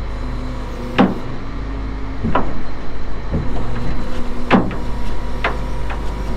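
Rollback tow truck running steadily during unloading, its winch holding the car on the steel deck, with about six sharp metallic clunks spread through, one every second or so.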